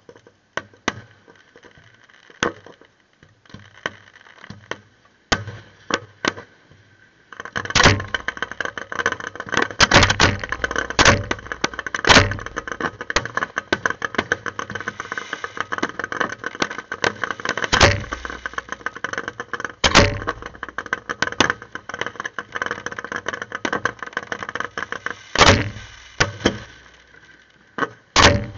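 Fireworks display: scattered sharp bangs, then from about seven seconds in a dense run of rapid crackling pops with loud, deep booms of bursting shells every few seconds.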